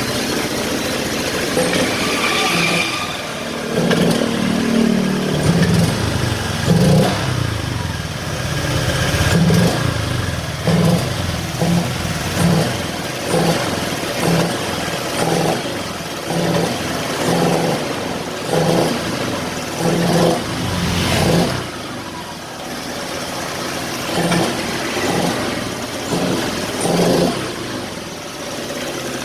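Honda Vario Techno 125 fuel-injected scooter's single-cylinder engine running, revved a few times and then blipped about once a second. Each time the throttle opens it bogs and runs rough ("ngempos dan ngorok"), as if starved of fuel, which the mechanic suspects is a weak fuel pump.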